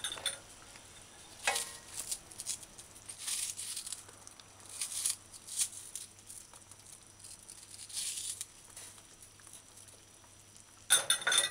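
A knife slicing a raw onion over a saucepan of stew, the pieces dropping into the broth: short crisp cuts and soft plops a second or more apart, with a louder spell near the end.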